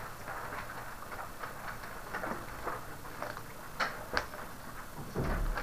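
Paper rustling and handling with scattered light clicks and taps, as a printed page is shifted on a desk and textbooks are brought out, with a dull thump near the end.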